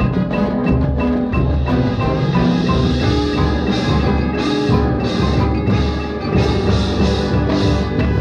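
High school marching band playing its field show: held chords over percussion, with a regular run of high crashes about every two-thirds of a second in the second half.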